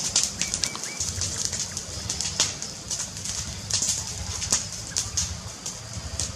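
Wood fire crackling, with irregular sharp pops and snaps over a low rumble.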